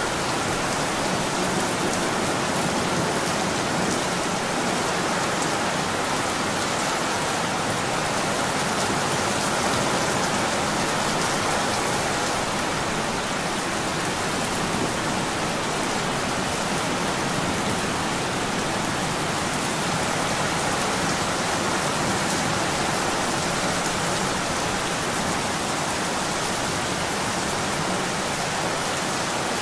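Steady rain falling: an even, unchanging hiss of many drops.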